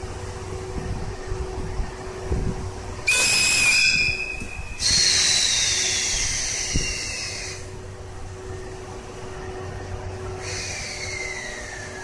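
EF81 electric locomotive's whistle sounds once at departure, a loud steady high blast of under two seconds, about three seconds in. After it, high tones slide slowly downward, and another falling tone begins near the end, over the locomotive's steady low hum.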